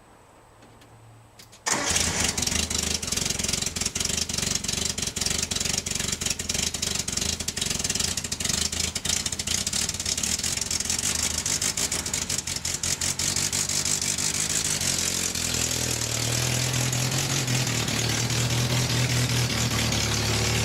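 1988 Suzuki Samurai's four-cylinder engine starting about two seconds in, running unevenly with a dense rapid ticking at first, then settling into a steadier idle in the last few seconds.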